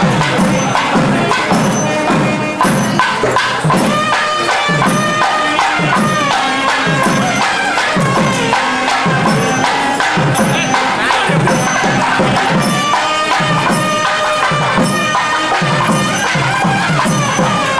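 South Indian temple procession music: a nadaswaram's reedy melody with pitch bends over a thavil drum's steady strokes.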